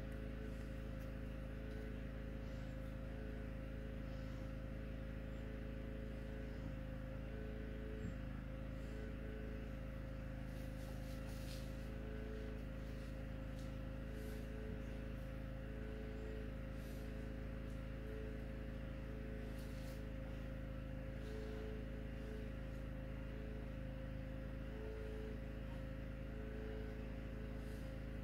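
Steady low background hum with a thin whine above it and a second faint tone that comes and goes every second or two, plus a few faint high ticks.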